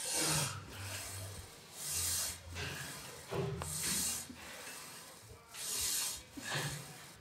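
A person breathing hard after a set, with a hissing breath about every two seconds.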